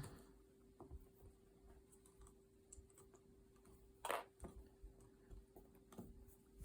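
Faint scattered clicks and light rustling of cotton potholder loops being woven over and under on a traditional loom, with one louder brush of fabric about four seconds in; otherwise near silence with a faint steady hum.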